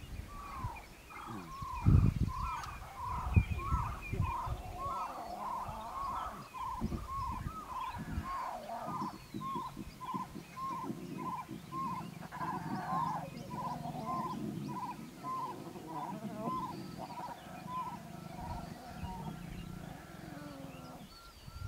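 Lion cubs growling and grumbling as they jostle each other to suckle, with a couple of loud low bumps early on. Behind them runs a steady series of short repeated calls, about two or three a second, that stops a couple of seconds before the end.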